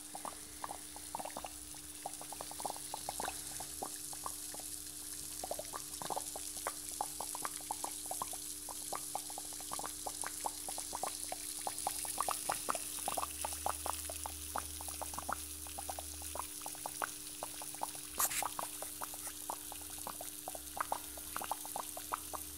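Gas bubbling up through the water in the bucket reservoir of a homemade plate-stack electrolysis cell (HHO generator): many small irregular pops and gurgles, several a second, over a steady low hum.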